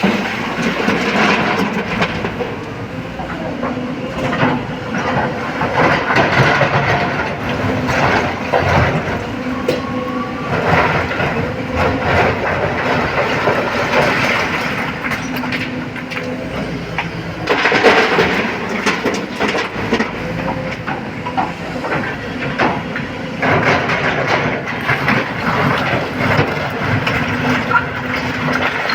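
Excavator diesel engine running steadily under hydraulic load while stone is loaded into a dump truck, with rocks clattering and knocking irregularly. The heaviest clatter comes a little past halfway.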